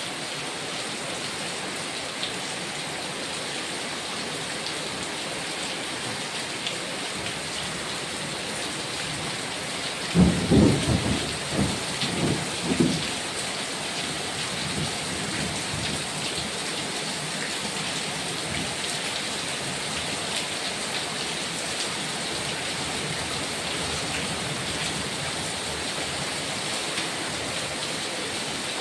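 Heavy rain falling steadily, with a short burst of thunder about ten seconds in: several loud low peaks over some three seconds.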